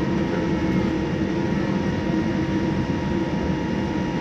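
Steady cabin noise aboard a Boeing 787-9: engine and air-conditioning rumble and hiss with a few faint steady tones, unchanging throughout.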